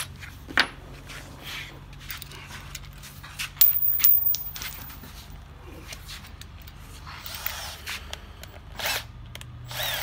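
Scattered clicks and knocks from handling tools and pump parts on a workbench, with a louder clatter of quick knocks about three and a half seconds in, over a faint steady low hum.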